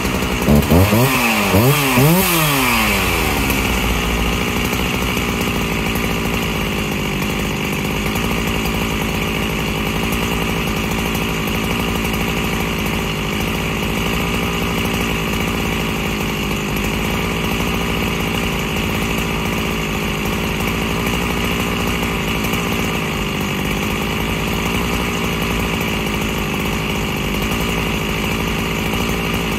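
Freshly rebuilt Husqvarna 365 SP two-stroke chainsaw revved in a few quick blips of the throttle in the first three seconds, then settling to a steady idle.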